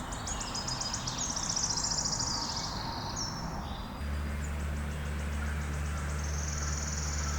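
Morning outdoor ambience of birds and insects calling in rapid, high, pulsing trills. A steady low hum starts about halfway through.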